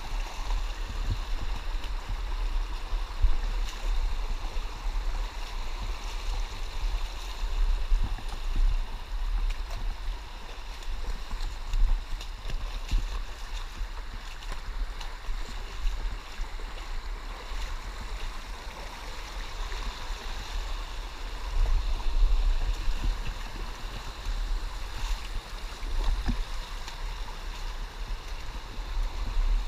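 Creek water running steadily, under a low, uneven rumble on the microphone.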